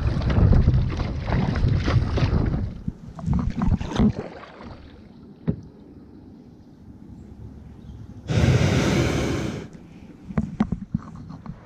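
Wind buffeting the microphone and water slapping on a kayak being paddled across choppy open water, fading after about two and a half seconds to a few quieter paddle knocks. About eight seconds in comes a harsh scraping rush lasting just over a second as the kayak's hull slides up onto a sandy beach, followed by a few sharp knocks.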